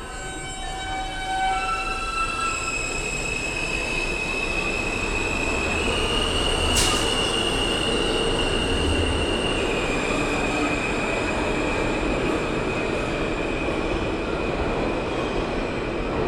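R160A-1 subway train pulling out of the station. A high electric whine from its propulsion climbs in short steps, then holds, jumping up in pitch and later back down, over the steady rumble of wheels on rail. A single sharp click about seven seconds in.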